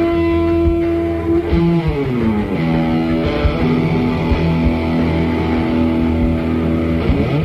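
Electric guitar played through a Fuzz Face fuzz pedal, holding long sustained lead notes, with a slide down in pitch about two seconds in and a quick slide up near the end.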